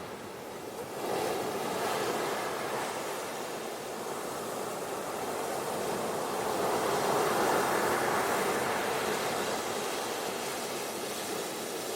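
Ocean surf washing onto a beach: a steady rush of water that swells to its loudest around the middle and eases off toward the end.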